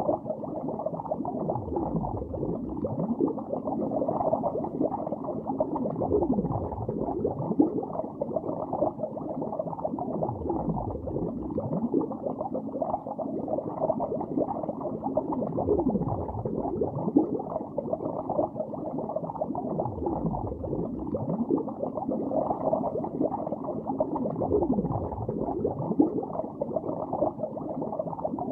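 Underwater bubbling: a continuous stream of bubbles heard as many small glugs and quick pitch sweeps, muffled and dull, with no highs.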